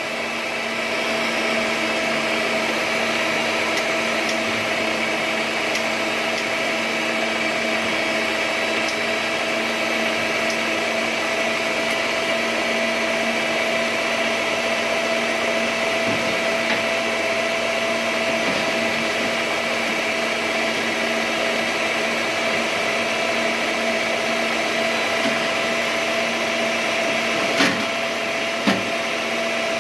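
Electric stand mixer running steadily, its beater whisking cake batter of flour, eggs, sugar and oil in a stainless steel bowl: an even motor whine. Two brief knocks come near the end.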